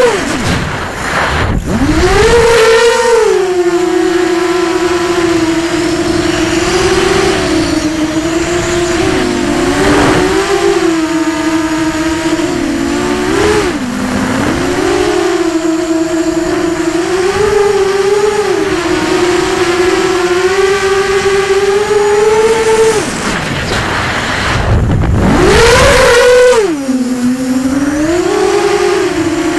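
Brushless motors and propellers of a ZMR250 racing quadcopter with BE1806 motors, heard from the onboard camera: a steady whine whose pitch rises and falls with the throttle. Twice the whine drops away and sweeps back up, shortly after the start and again about three-quarters of the way through.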